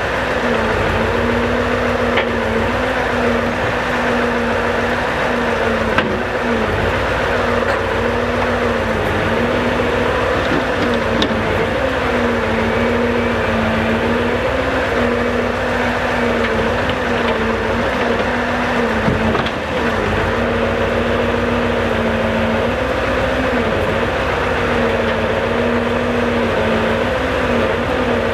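Scania R650 truck's V8 engine running steadily while the truck-mounted timber crane works its hydraulics. It is a constant hum whose pitch dips slightly now and then as the crane moves, with a few faint knocks from the logs.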